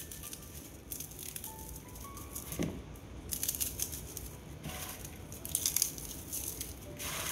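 Puffed rice cakes being crushed and crumbled by hand in a bowl: dry crackling and crunching in irregular bursts.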